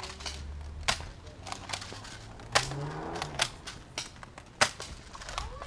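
Airsoft gun firing single shots: four sharp cracks at irregular intervals, with a few fainter clicks between.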